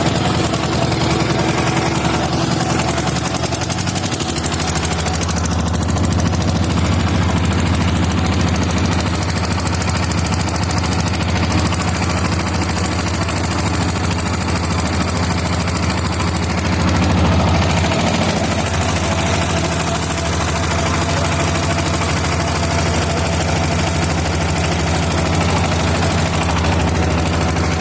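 Boat engine running steadily, a rapid knocking chug, growing a little louder a bit past halfway.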